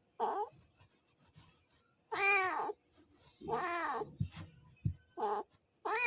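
Domestic cat meowing loudly and insistently, in the drawn-out angry way: five separate meows, each rising then falling in pitch, the first and fourth short and the others longer.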